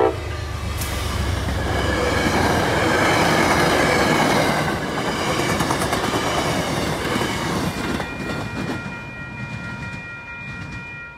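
MBTA commuter train passing at speed, led by an MPI HSP46 diesel locomotive, then bilevel coaches with their wheels clattering over the rail joints. The noise is loudest a few seconds in and fades away near the end as the last car goes by.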